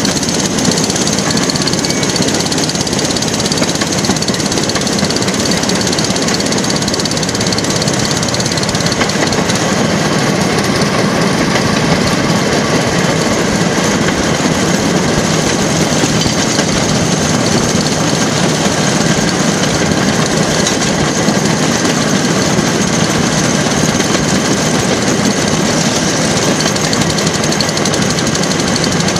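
Motorised railway track car (jigger) running steadily along the rails, its small engine chugging under way.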